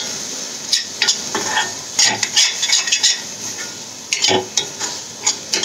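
Metal spoon stirring and scraping thick spice masala around a hot kadai while it sizzles in oil, the masala being fried down until the oil separates. The spoon scrapes and knocks against the pan at uneven moments, the loudest about four seconds in.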